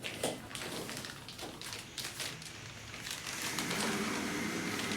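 Scattered clicks, taps and rustles of a microphone set and its packaging being handled.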